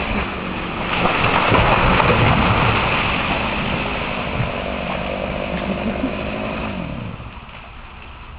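An engine running steadily with a lot of noise. Its pitch falls and it fades out over the last couple of seconds as it slows down.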